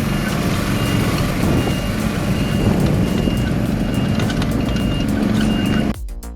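A heavy machine's reversing alarm beeping steadily, one short high beep about every two-thirds of a second, over the loud running of its engine.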